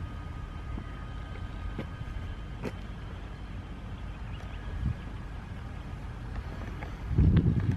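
Kawasaki Ninja ZX-10R inline-four engine idling through a Scorpion RP1 GP exhaust, then blipped once near the end with a sudden loud rev.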